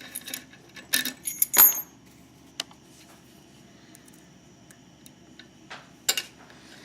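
Sharp metallic clinks and clicks as a pin-tumbler lock and steel lock picks are handled and the lock is clamped in a vise. Three clinks come in the first two seconds, the loudest about a second and a half in with a brief high ring. Then come light ticks and one more sharp clink near the end.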